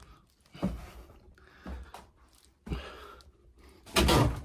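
Hard breathing and heavy footfalls of a man carrying a sack of rice grain up stairs, about one step a second, with a louder rustling thud about four seconds in.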